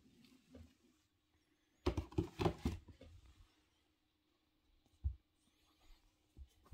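A kitten play-fighting with a hand on a mattress: a burst of scuffling and rustling about two seconds in, then a few soft, single thumps.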